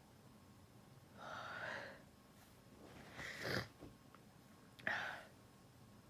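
A woman's induced sneezing. A drawn-out noisy breath comes about a second in, then a sneeze that builds and peaks sharply about three and a half seconds in, then another sudden, short burst just before the end.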